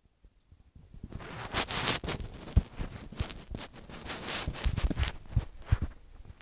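Handling noise from a tablet camera's microphone being moved about and rubbed close up: rustling and scraping with several dull knocks, starting about a second in.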